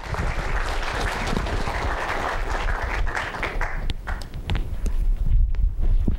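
Lecture-hall audience applauding, dying away about four seconds in. Low thumps and a few sharp knocks follow near the end.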